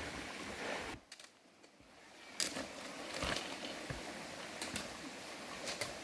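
Steady rush of a mountain stream, broken by a sudden near-silent gap about a second in. Several light clicks and knocks sound over the water in the second half.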